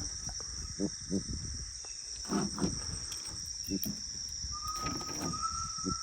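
Steady high-pitched insect chorus, with a scatter of short knocks and a faint thin tone near the end.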